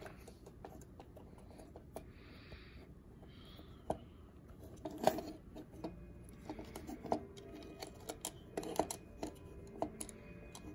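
Faint scattered clicks and light rattles of a Roland CJ-500 ink pump's plastic wiper module being slid back and forth by hand, the sharpest click about five seconds in. Two short soft hisses come between about two and four seconds in.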